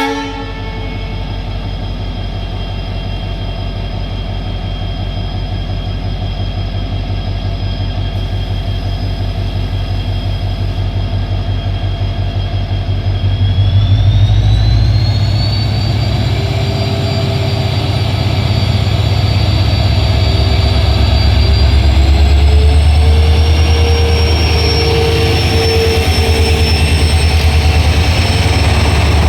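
Indian Railways diesel locomotive engine working hard on departure, a steady deep throb that builds about halfway through as it notches up. A high turbocharger whine rises in pitch with it, then climbs again a little later.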